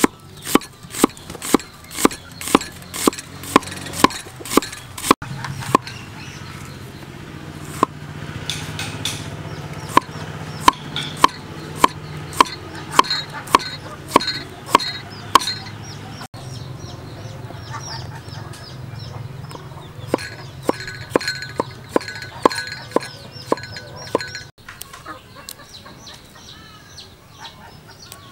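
Cleaver slicing through onion and then tomato onto a wooden chopping block: a series of sharp, regular knocks, about three a second at first and slower later, stopping near the end. Chickens cluck in the background.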